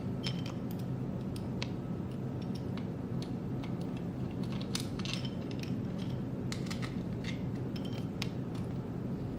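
Scattered small clicks and scrapes of a screwdriver turning the screws that fix a circuit board to a 3D-printed plastic frame, over a steady low hum.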